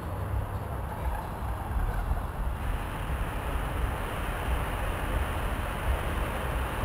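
Distant fireworks display heard from far off as a steady low rumble and hiss, with no single bang standing out; the hiss grows louder about two and a half seconds in.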